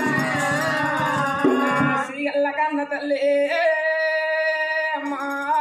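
Oggu katha folk singing: a singer's voice wavering in pitch over a steady low note, the drumming having stopped. Past the middle the voice holds one long steady note before the low note comes back.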